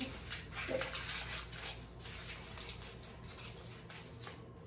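Aluminium foil crinkling as gloved hands fold it around a section of hair: a run of irregular crackles, denser in the first two seconds and thinning out toward the end.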